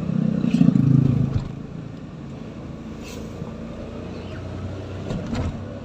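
A motor vehicle's engine running on the road, louder for the first second and a half and then steadier and quieter.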